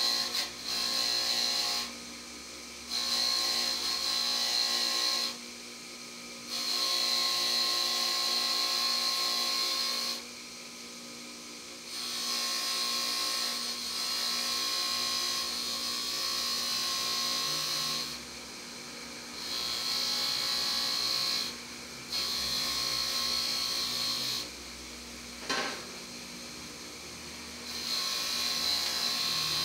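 Bench grinder running with a steady motor hum, while small brass carburettor parts (the main jet and the emulsion tube) are pressed against the spinning wheel again and again to clean them. Each press gives a scratching, hissing spell of one to three seconds, and there are about eight of them, with a single sharp click near the end.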